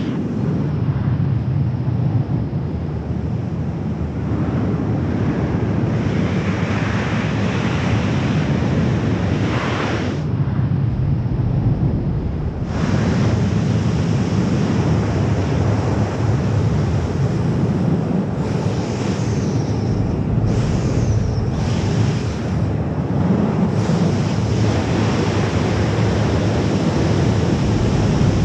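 Freefall wind rushing over the camera microphone during a wingsuit flight: a loud, steady rush. It turns duller for a couple of seconds about a third of the way in.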